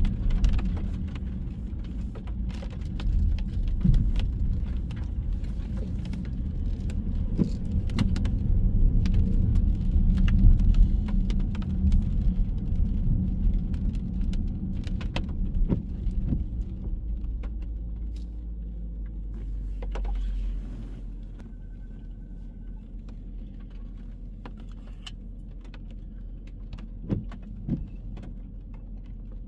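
Car road noise heard from inside, a steady low rumble with many small clicks and rattles. The rumble falls off about two-thirds of the way through, as when the car slows or stops, and a brief high tone sounds soon after.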